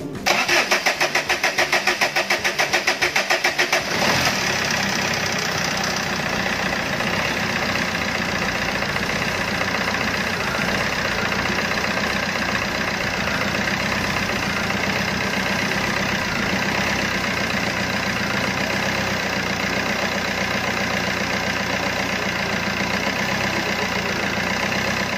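Common-rail diesel engine cranked on the starter with an even pulsing for about four seconds, then catching and running steadily at idle. This is the first start after the leaking common-rail high-pressure pump has been repaired.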